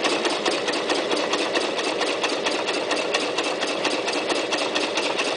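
Toyota Super Jeans J34 sewing machine running steadily at speed, its needle stitching through upholstery fabric and welting cord with a fast, even rhythm of strokes.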